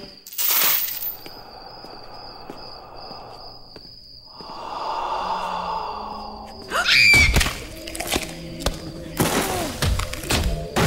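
Spooky Halloween soundtrack of music and sound effects. A sharp crack comes right at the start, then a steady high whine. In the second half, sweeping glides in pitch mix with heavy thuds and crashing sounds.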